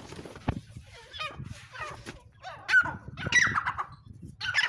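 Partridges (teetar) calling while squaring up to fight: a string of short, harsh cries with quick pitch sweeps, loudest a little under three seconds in and again near the end.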